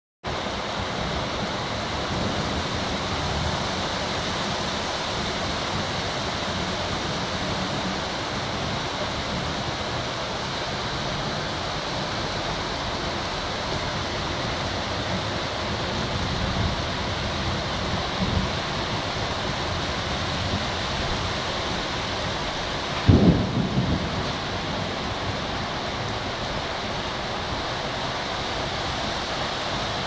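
Heavy rain pouring down in strong wind, a steady rushing hiss with trees tossing in the gusts. About three-quarters of the way through comes a brief, loud, low rumbling burst.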